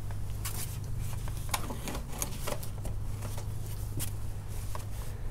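Two-stroke chainsaw idling with a steady low drone between cuts, with scattered light clicks and taps over it.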